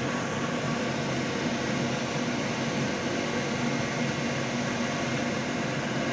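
Steady rushing machine noise with a low hum underneath, loud and unchanging.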